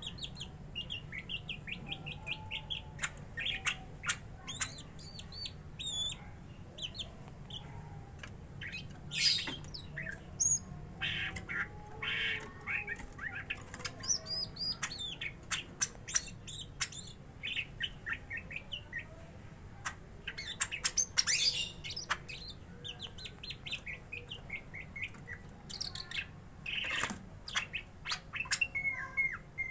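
Caged cucak ijo (green leafbirds) singing in fighting mode at each other: a busy run of sharp chirps, quick trills and harsh squawks, with a steady low hum underneath.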